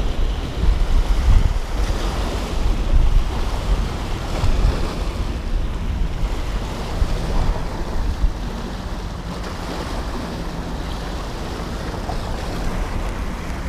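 Wind buffeting the microphone in uneven low rumbles over small waves washing against a rocky shoreline.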